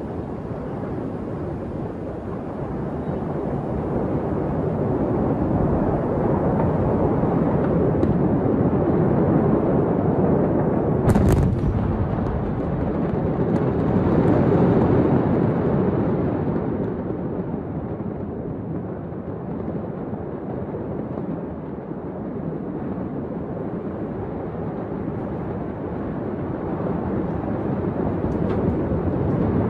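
Large explosion heard from a distance: a deep, continuous rumble that swells and then eases off, with one sharp bang about eleven seconds in.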